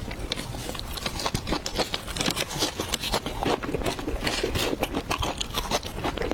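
Close-miked chewing and biting of food: a dense, irregular run of sharp clicks.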